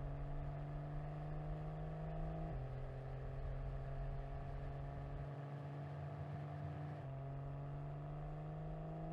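BMW M440i's 3.0-litre turbocharged inline-six running under steady moderate load, its pitch rising slowly. The pitch drops abruptly about two and a half seconds in, holds steady, then steps back up about seven seconds in and climbs slowly again.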